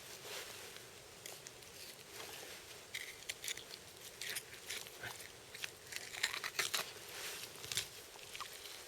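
Knife blade cutting and scraping on a deer carcass: faint, irregular crackles and small clicks of the edge working through hide, meat and membrane.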